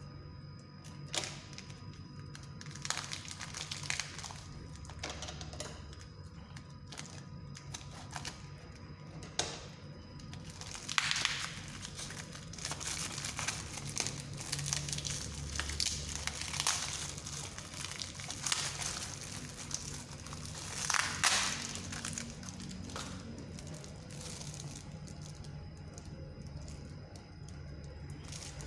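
Packaging crinkling and crackling as it is handled and opened by hand, with scattered clicks and taps and a few louder bursts of rustling.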